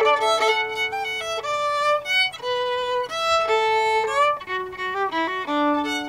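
Solo fiddle playing a folk tune: a bowed melody of held and shorter notes. A lower drone string sounds under the melody at the start and again near the end.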